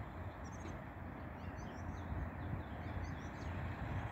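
Small birds chirping, with many short high calls scattered throughout, over a steady low rumble.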